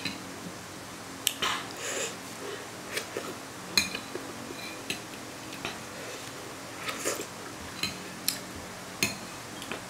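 Metal spoon clinking and scraping against a bowl at irregular intervals, with short sips of the soupy food in between.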